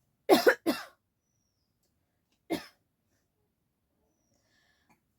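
A person coughing: two quick coughs close together, then one more single cough about two seconds later.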